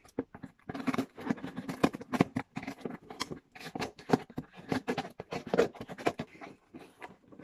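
Scissors cutting through the packing tape on a cardboard shipping box: a run of irregular snips and scrapes, with the cardboard rattling under the blades.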